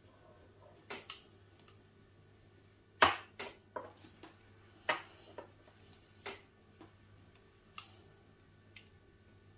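Metal wheel pizza cutter clicking and tapping on a countertop as it cuts through dough: about ten sharp, irregular clicks, the loudest about three seconds in.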